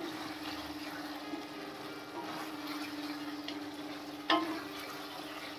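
Guava slices frying in a metal kadai over a high gas flame and being stirred with a spatula: a steady sizzle with a hum underneath, and one sharp knock of the spatula against the pan about four seconds in.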